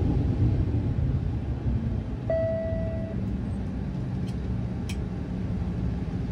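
Steady low drone of a Dash 8-100's twin turboprop engines and propellers, heard in the cabin. A short single beep sounds about two seconds in.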